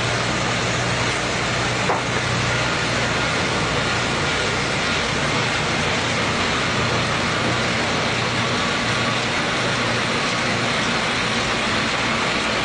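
Banknote printing and sheet-handling machinery running: a steady, even din with a constant low hum. A single click sounds about two seconds in.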